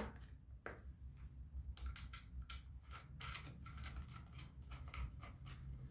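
Faint, irregular small clicks and scrapes of plastic and metal as the side-cover retaining nut of a Sun Joe 14-inch electric chainsaw is turned by hand to tighten the cover down over the bar and chain.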